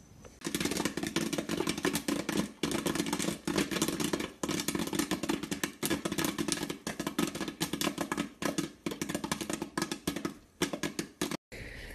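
Electric stirring popcorn popper with kernels popping in quick, dense crackles over the steady hum of its stirring motor. The popping thins out near the end.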